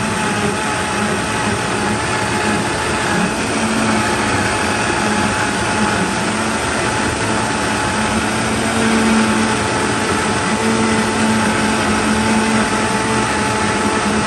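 Countertop blender motor running steadily, blending a liquid cheesecake batter of eggs, cream cheese and evaporated and condensed milk.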